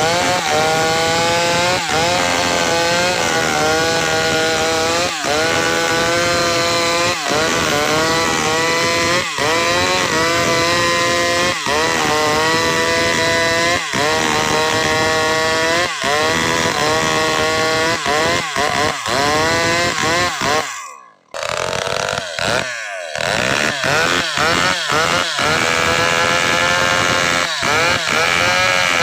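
Maestro chainsaw running at full throttle while cutting gmelina (white teak) wood. The engine pitch dips under load about every two seconds, then recovers. The sound cuts out briefly about three quarters of the way through, and after that the dips come faster.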